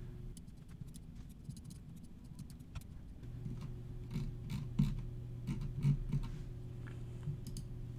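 Computer mouse clicks, many quick irregular clicks, over a low steady hum.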